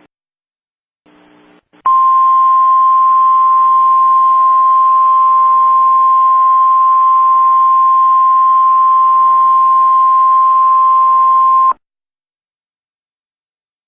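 Emergency Alert System attention tone: one loud, steady, single-pitch beep held for about ten seconds over faint radio hiss. It starts about two seconds in and cuts off suddenly.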